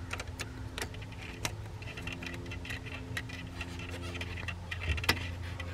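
Scattered light clicks and taps from hands working a rubber coolant hose and its spring clip onto a fitting, over a steady low hum.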